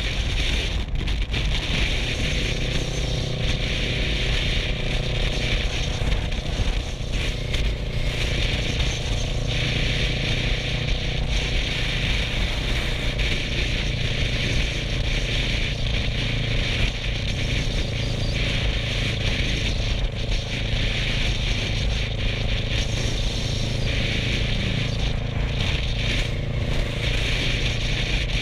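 Kawasaki Versys 650's parallel-twin engine running at a steady cruising speed, heard through a helmet-mounted GoPro, with a steady rush of wind and road noise over it.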